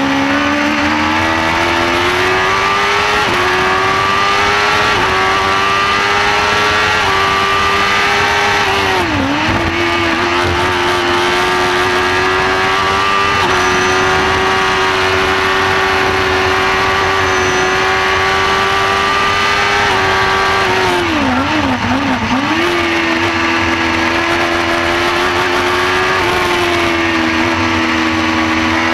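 Shortcar race car's engine at high revs, heard from inside the cockpit: it climbs through quick upshifts, holds high revs down the straights, and drops sharply twice as the car slows for corners, the second time with quick blips on the downshifts.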